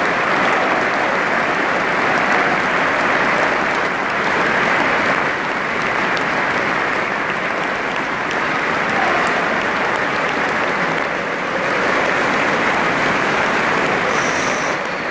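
A large crowd applauding in a steady, sustained round of clapping.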